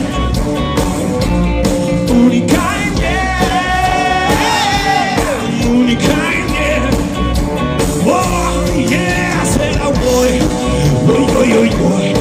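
Live band music: electric guitars, bass and drum kit playing between sung verses, with long wordless vocal lines over the band about three and eight seconds in.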